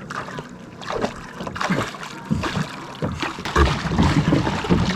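Lake water splashing and sloshing around a pedal boat as it is paddled and towed, in irregular strokes about every half second.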